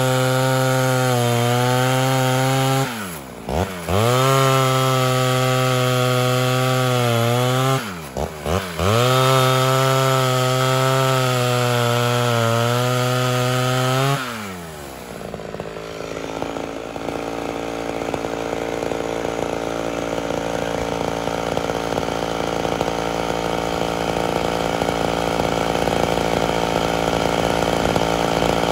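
Ported Homelite Super XL Auto two-stroke chainsaw held at high revs while cutting through logs, dropping off throttle briefly twice before climbing back. About fourteen seconds in the high note stops, and the saw runs at a low idle that grows louder toward the end.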